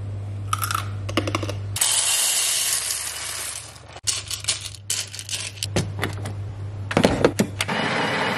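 Coffee beans clicking and clattering in an espresso machine's grinder hopper, then near the end the built-in burr grinder starts running steadily, grinding coffee into the portafilter. A stretch of steady hiss comes before the clicking, in the first half.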